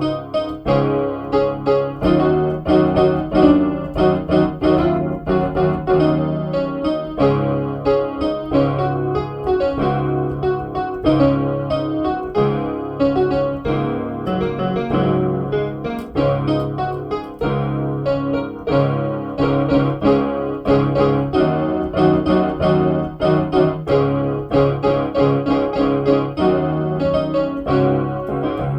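Electronic keyboard music in a piano voice: fast, densely repeated notes over a held low bass line.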